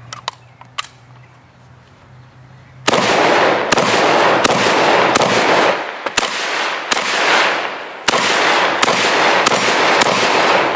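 Vepr-12 semi-automatic 12-gauge shotgun firing a rapid string of about ten shots, roughly one every three quarters of a second, starting about three seconds in, each shot followed by a long echo. A few light clicks of handling come before the first shot.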